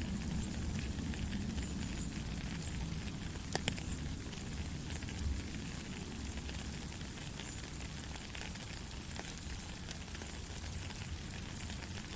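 Steady rain falling, a fine hiss of many small drops with a few louder single drips about three and a half and five seconds in, over a low rumble.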